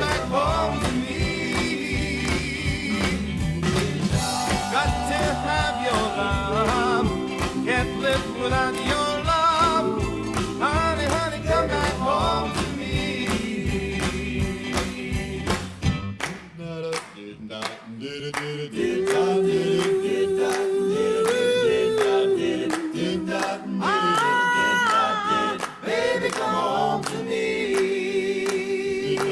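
Doo-wop vocal group singing in harmony over a band with bass and drums. About sixteen seconds in, the bass and drums drop out for a few seconds, leaving the voices. A long held sung note follows as the band comes back in.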